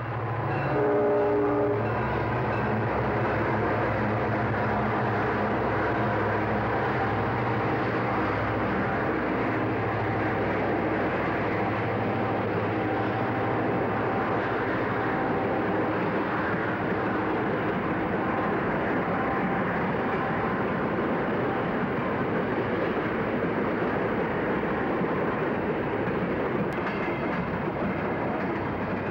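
Diesel-hauled train passing: a locomotive engine's low, steady drone over the continuous rumble of rolling rail cars.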